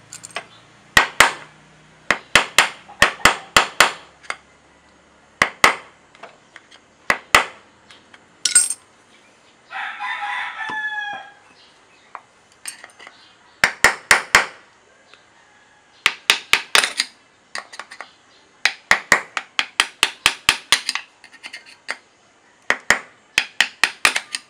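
Light, quick metal-on-metal taps of a hammer on a punch against the spring seat of a Yamaha Mio's secondary sliding sheave, in bursts of several taps a second with pauses between, worked gently to ease the seat up without forcing it. A rooster crows once about ten seconds in.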